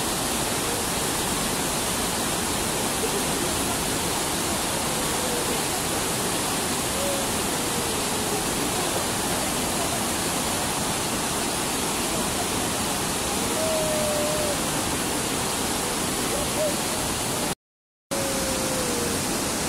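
Steady rushing roar of whitewater river rapids, broken by a short gap of silence near the end.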